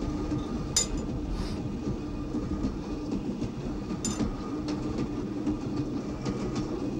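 Passenger train running, heard from inside the carriage: a steady rumble of the wheels on the rails with a faint hum. Two sharp clicks stand out, about a second in and again about four seconds in.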